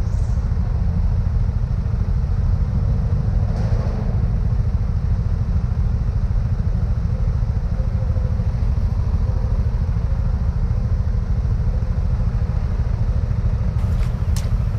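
Motorcycle engine running in slow, congested traffic, heard as a steady low rumble along with the surrounding traffic. A couple of sharp clicks near the end.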